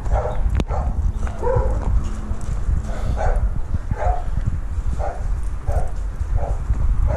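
A dog barking over and over, roughly one bark every two-thirds of a second in the second half, over a steady low rumble.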